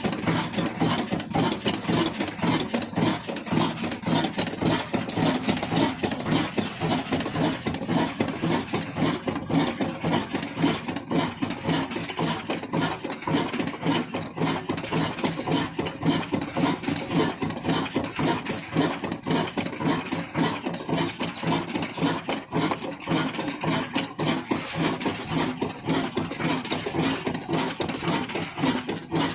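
22 HP diesel engine running steadily with a rapid, even beat.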